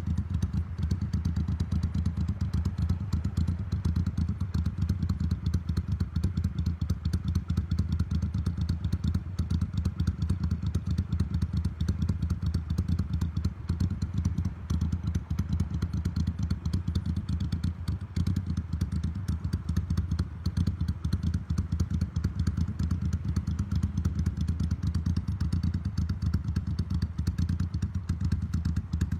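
Motorcycle engine idling steadily on an aftermarket Mikuni TM40 carburettor, with an even, low pulsing beat.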